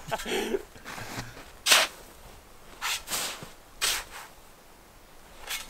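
Snow crunching in about five short, irregularly spaced crunches.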